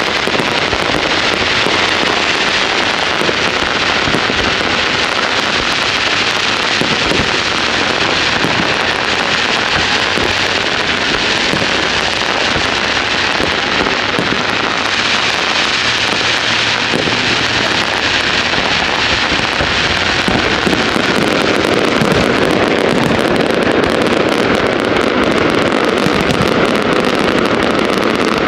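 Fireworks going off in a dense, continuous barrage of crackles and pops.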